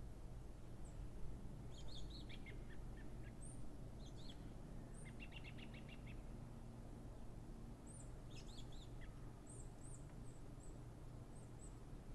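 Small birds chirping and calling, with short falling chirps, a quick run of about eight rapid notes around five seconds in, and thin high peeps, over a steady low background rumble.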